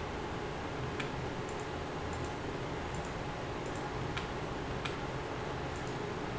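Sparse, irregular clicks from a computer's keys or mouse, about one a second, over a steady low room hum.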